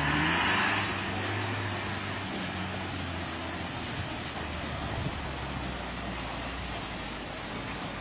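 A motor vehicle engine running steadily with a low hum over a constant rushing noise. The hum fades out near the end.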